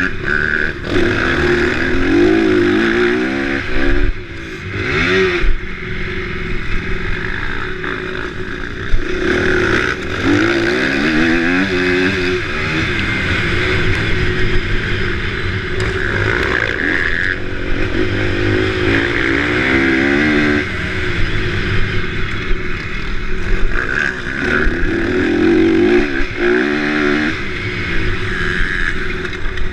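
Motocross dirt bike engine, loud and close, revving hard with its pitch climbing again and again through the gears and dropping as the throttle is eased.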